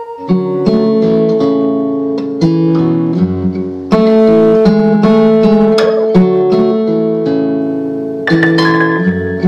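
Background instrumental music: a melody of plucked notes.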